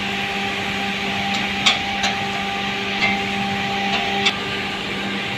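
Steady hum of running cement-plant machinery, with a few sharp metallic clicks as a spanner works on the bolts of a rotary cement packer's impeller housing. A higher tone in the hum drops out about four seconds in.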